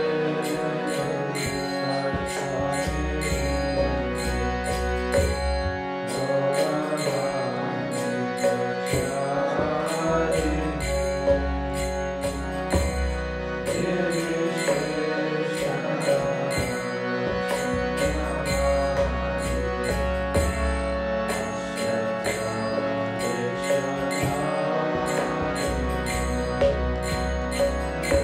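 Kirtan devotional music: a held drone under a wavering melody, with small hand cymbals striking a steady beat.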